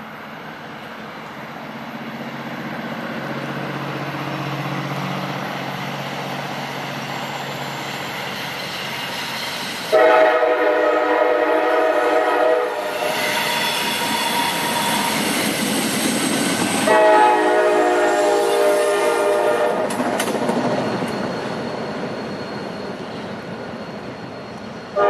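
CSX EMD GP40-2 diesel locomotive approaching, its engine rumble growing louder, then sounding its Nathan K5LA five-chime air horn in long blasts: one about ten seconds in, another about seven seconds later, and a third starting at the very end. Rail wheels click over the track joints as it passes.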